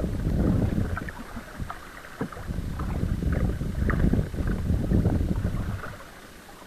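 Kayak paddle strokes: the blade dipping in and water splashing and dripping off it, with wind buffeting the microphone in swells.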